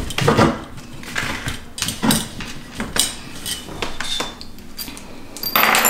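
Steel tubing of an egg swing chair stand knocking and clinking as it is handled during assembly: a run of sharp knocks, several leaving a short metallic ring.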